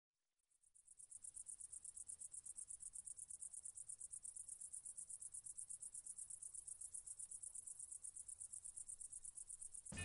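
Faint cricket chirping in a fast, steady, high-pitched pulse of about nine chirps a second, starting about a second in.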